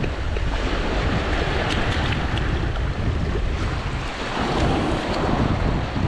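Wind buffeting the microphone, over sea waves washing and splashing against the rocks.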